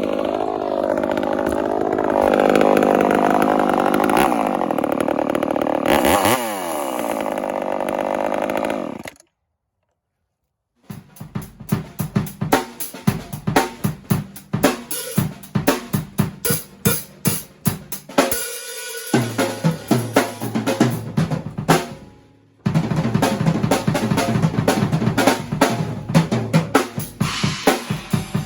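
A chainsaw with a hand-filed square-ground chain runs under load, with its engine pitch wavering, then revs down about six seconds in and stops short. After two seconds of silence, drum-kit music with a steady beat plays.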